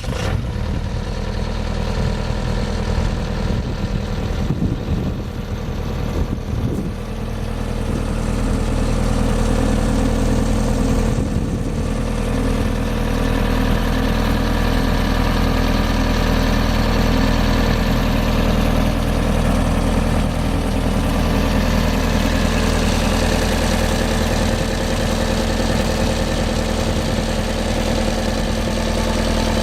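Bobcat S185 skid steer's diesel engine running steadily, getting somewhat louder about seven seconds in.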